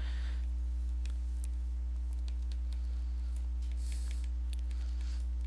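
A steady low hum under faint, scattered clicks and short scratches of a stylus writing on a tablet screen, with a brief cluster of scratching about four seconds in.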